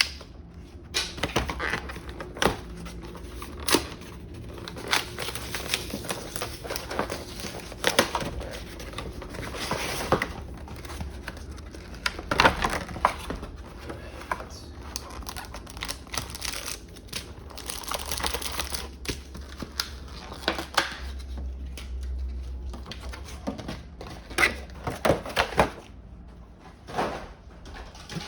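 Pokémon trading card collection boxes being unpacked by hand: plastic wrapping and foil booster packs crinkling and tearing, with many sharp clicks and knocks of cardboard being handled.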